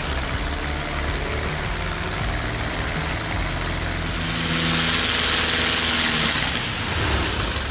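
Light aircraft engine running on the ground, driving a four-blade propeller. It grows louder with a rushing hiss for a couple of seconds past the middle, then falls in pitch and begins winding down near the end. The engine is quitting on its own, which the pilot takes for a too-lean mixture.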